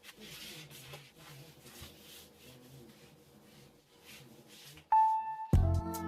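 Faint, uneven rubbing strokes of a surface being wiped clean. About five seconds in, a short steady tone sounds, then music with a heavy beat starts.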